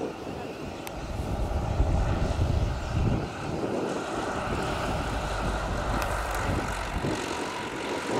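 Single-engine propeller light aircraft passing low on its landing approach, its piston engine and propeller droning steadily, loudest a couple of seconds in.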